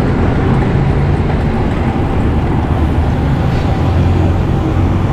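Steady road noise heard from a moving bicycle on a busy road: a continuous rush of wind and passing traffic, with a low engine hum underneath.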